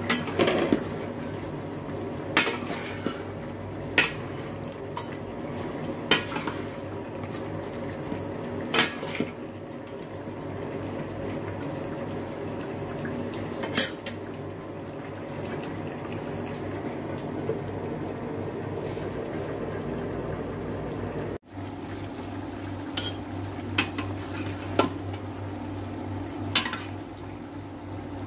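A spatula clinks and scrapes against a stainless steel pan while chicken pieces are stirred. There are sharp knocks every few seconds over a steady low hum.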